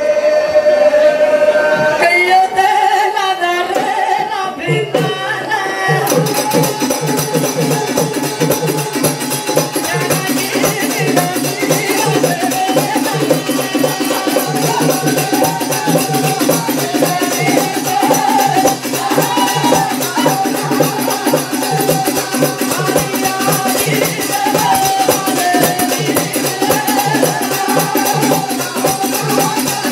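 Live Banjara bhajan: male singing with dholak-style hand drums. The first few seconds are held sung notes with light accompaniment; about six seconds in, the drumming starts in earnest with a fast, steady beat under the singing.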